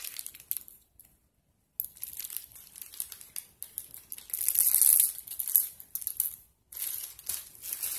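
Small plastic zip-top bags crinkling as they are handled and beads are shaken out of one into a hand. The crinkling stops for about a second near the start and is loudest a little past the middle.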